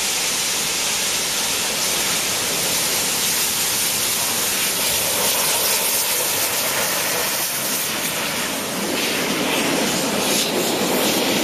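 Steam-hauled passenger train passing by: a steady rushing noise of the train running on the rails, with a strong hiss.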